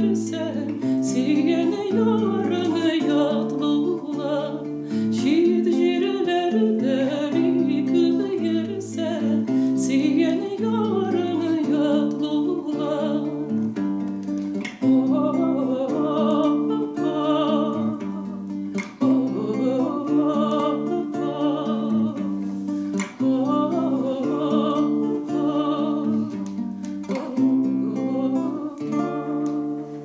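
A woman singing a song in Tatar, accompanying herself on an acoustic guitar with plucked notes and chords.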